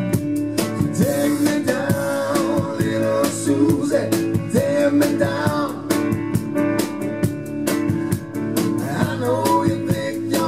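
Live band playing a rock song: electric guitar, electric bass and drums keeping a steady beat, with singing over them.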